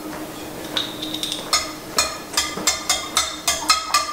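Wire whisk clinking against the side of a ceramic bowl as a child beats raw eggs. The strokes are irregular and come quicker from about halfway through, roughly three or four a second.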